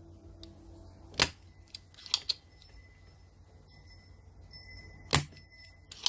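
Spring-loaded desoldering pump (solder sucker) firing, sucking molten solder from the joints of a PS4 controller's analog-stick sensor: two sharp snaps about four seconds apart, with a few softer clicks between them.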